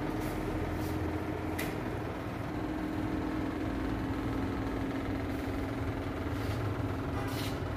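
Steady machine hum with a low rumble beneath one held tone, and a few faint ticks.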